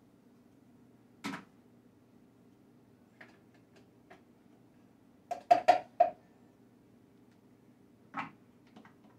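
Kitchen utensils and dishes being handled on a counter. There is a sharp knock about a second in, then a quick run of four louder, ringing clinks around the middle, and another knock near the end, over a faint low hum.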